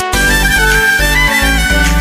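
Upbeat background music with a steady bass and a bright melody line.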